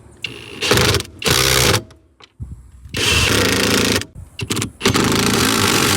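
A handheld power tool run in four short bursts, each half a second to a little over a second, the longest near the end.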